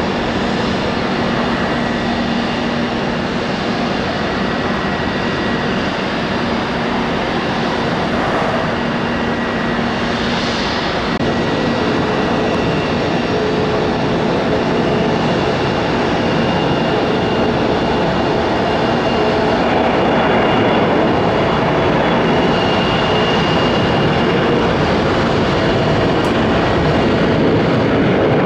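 Jet airliner turbofan engines running steadily through a take-off sequence, with faint whining tones over a broad rumble: first an Airbus A220-300, then, about twelve seconds in, an Embraer 175. The sound grows a little louder over the last third.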